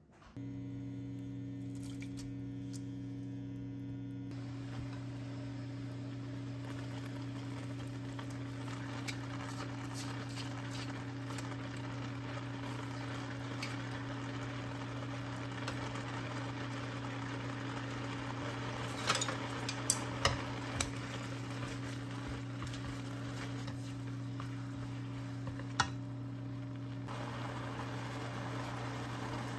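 Steady low electrical hum over kelp strips sizzling faintly in a frying pan. A few sharp clicks of chopsticks against the pan come about two-thirds of the way through.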